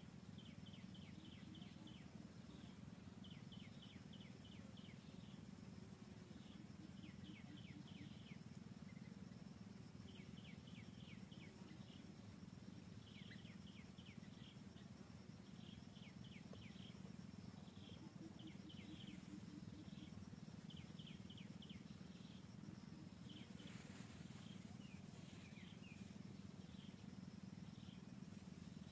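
Faint forest ambience: a small bird repeating a short phrase of quick, high, descending chirps every second or two, over a steady low hum.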